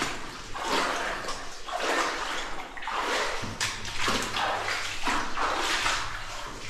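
Boots wading through water in a flooded mine passage, a slosh with each step, roughly one a second.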